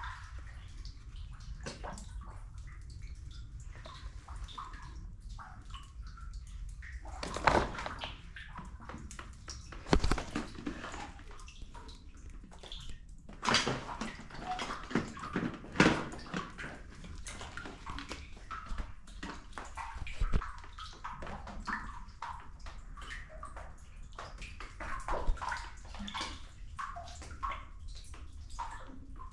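Water dripping and sloshing inside a rock sea cave: scattered drips and small splashes over steady lapping, with several louder splashes along the way.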